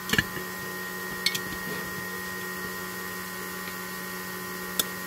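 Small pen-style electric rotary tool running steadily, its bit grinding down the head of a rivet on a diecast zinc-alloy toy body to release it. It makes a steady whine, with a few light ticks as the bit catches.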